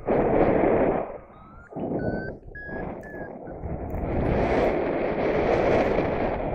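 Strong wind buffeting the microphone in gusts: a loud gust in the first second, a short lull, then it builds to a steady blast from about four seconds in. A few short high beeps sound during the lull.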